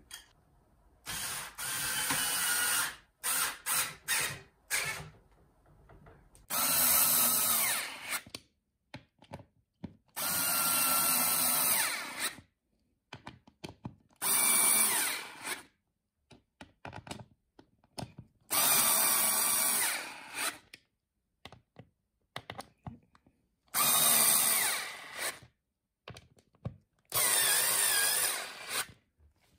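Bosch cordless screwdriver driving screws into a metal hinge in repeated short runs, each a second or two long, with pauses between.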